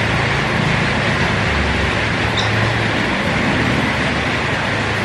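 Steady background noise: an even rush with a low hum underneath, holding level throughout.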